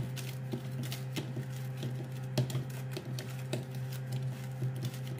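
Fingers and palm patting and pressing buttered biscuit crumbs into a metal cake pan: irregular light taps and crunchy pats, a few every second, over a steady low hum.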